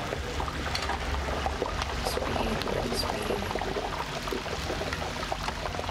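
Chicken pieces sizzling and bubbling in hot oil in a broast pressure fryer whose lid has just been opened, with a dense, steady crackle.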